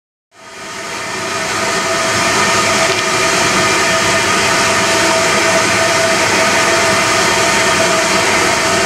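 LSWR M7 class 0-4-4 tank engine's train approaching: a steady, loud mix of running noise and held tones, fading in at the start.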